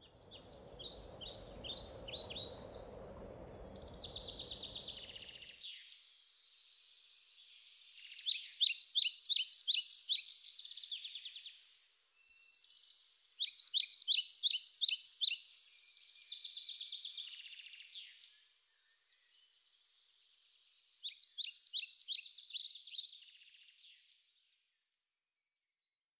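A songbird singing phrases of quick, repeated high notes, with pauses between the phrases. A low rushing noise underlies the first five seconds and then stops.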